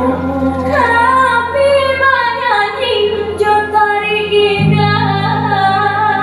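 Music for the tarian endang dance: a woman sings a gliding melody over steady low held chords. The chords change about four and a half seconds in.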